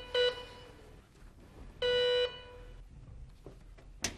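An electric signal sounding a steady, horn-like tone in blasts: the last of a quick run of short blasts right at the start, then one longer blast about two seconds in. A sharp click near the end.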